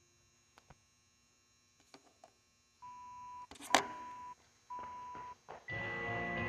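Workout timer start countdown: three short beeps at one pitch, then a longer, higher beep that signals the start of the workout, about five and a half seconds in. A sharp click sounds between the first two beeps, and music with guitar starts with the last beep.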